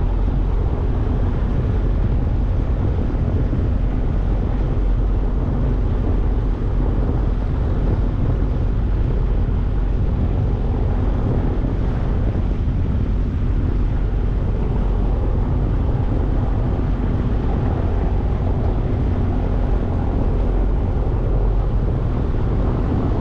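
Motorboat engine running steadily under way, with wind rumbling on the microphone.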